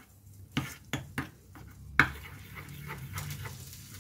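A spoon stirring thick semolina batter in a steel bowl, with a few sharp clicks as it knocks the bowl. The loudest knock comes about two seconds in.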